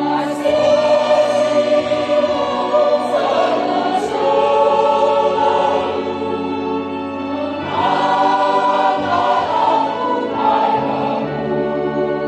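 Mixed choir of men's and women's voices singing a hymn in parts, holding sustained chords, with a new phrase entering about eight seconds in.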